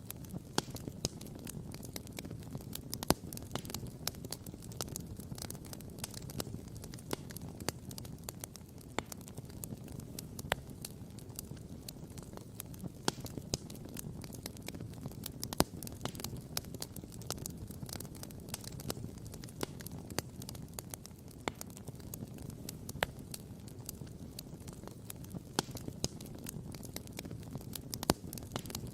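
Wood campfire crackling and popping, with many irregular sharp snaps, a few louder pops standing out, over a steady low rumble.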